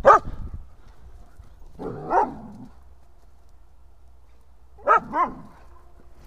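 A dog barking: one bark at the start, another about two seconds in, and two quick barks close together near the end.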